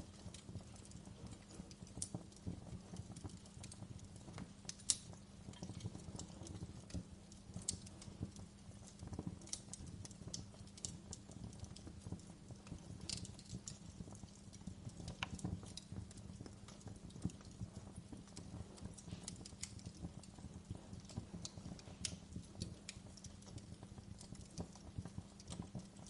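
Fire burning in a fireplace, crackling and popping irregularly over a steady low rumble of the flames, with one loud pop about five seconds in.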